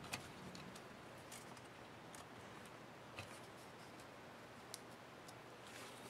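Faint, scattered small clicks and ticks as hands work the ASUS TUF FX505D laptop's copper heat-pipe heatsink loose from the motherboard. The sharpest click comes just after the start.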